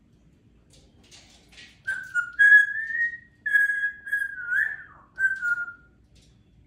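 Congo African grey parrot whistling a run of clear notes, mostly held level with small slides up and down, after a few soft scratchy sounds.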